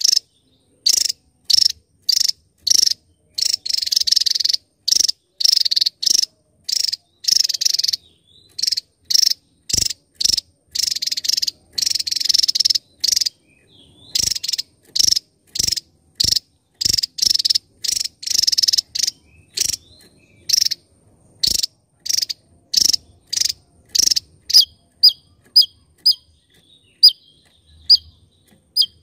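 Javan tesia singing: a long run of short, harsh, high-pitched notes at about two a second, with brief pauses. Near the end the notes become shorter, clearer downward-slurred whistles.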